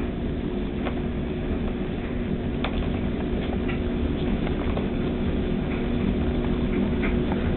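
A steady low mechanical hum runs throughout. Over it come a few light taps and scratches of kittens' paws and claws on a fabric couch.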